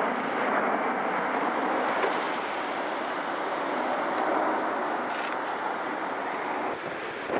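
Jet noise from an Airbus A380's four Rolls-Royce Trent 900 turbofans at climb power as the airliner climbs away: a steady, dense rushing rumble that slowly fades.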